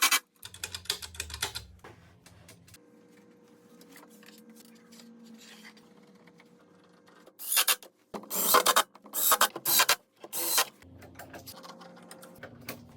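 A woodworking tool at work in several short, loud bursts, clustered a little past halfway, after a quieter stretch.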